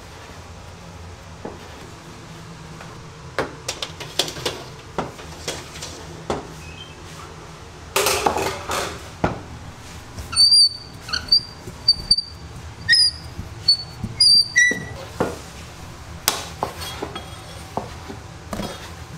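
Knife and tools tapping and knocking on a wooden baking bench while dough is cut and handled, with a rustle about eight seconds in and a run of short high squeaks in the middle, over a steady low hum.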